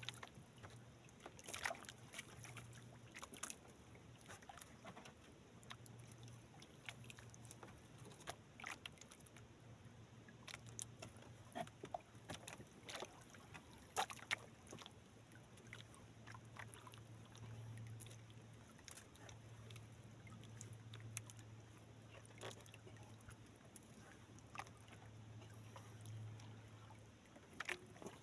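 Faint sounds of a small outrigger boat drifting at sea: water lapping at the hull, with scattered light knocks and ticks. A low hum rises and fades underneath.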